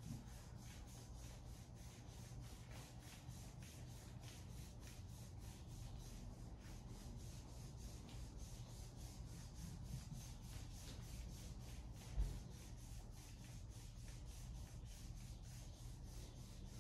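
RumbleRoller massage stick's knobbed balls rolled quickly back and forth over a thigh through denim jeans: faint, even rubbing strokes, about five a second. One soft low thump about twelve seconds in.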